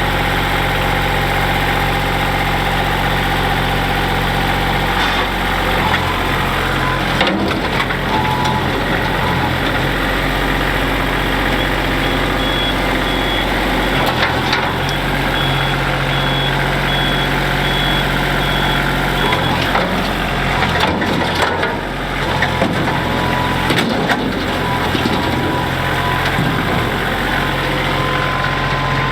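Backhoe's diesel engine running steadily, its pitch shifting a few times, with several sharp knocks and crunches in between.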